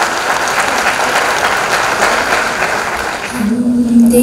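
Audience applauding, dying away about three seconds in. Near the end a singing voice comes in on a long held note as the song begins.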